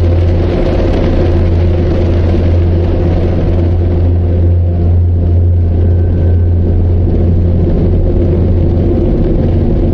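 A loud, steady deep rumble with a low hum, a cinematic rumble sound effect that holds without a break.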